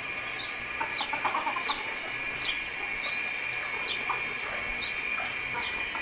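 Chickens clucking, with a short high chirp repeating about twice a second throughout over a steady high-pitched whine.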